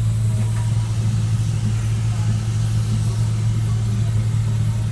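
Portable air compressor engine running steadily at a constant speed, a loud low hum that does not change.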